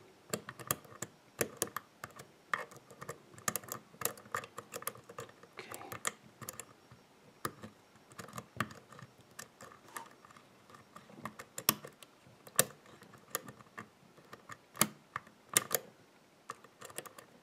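Steel hook pick clicking and scraping against the pin stacks of a CES euro profile cylinder held under a tension wrench: irregular small metallic clicks, a few sharper ones in the second half.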